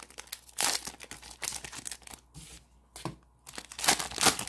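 Wrapper of a Panini Mosaic football card pack being torn open by hand, crinkling and ripping in several short tears, the loudest near the end.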